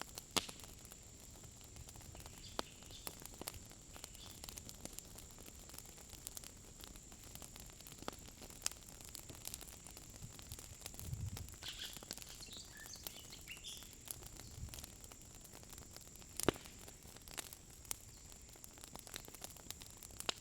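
Quiet outdoor ambience: scattered sharp crackles and clicks over a steady high-pitched whine, with a few bird chirps about halfway through.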